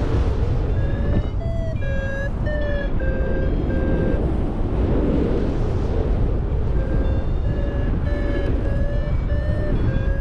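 Paragliding variometer beeping in short tones, about two a second, its pitch shifting slightly from beep to beep. The beeps stop for about two seconds mid-way, then start again. This is the vario's climb signal in lift. Heavy wind noise on the microphone runs throughout.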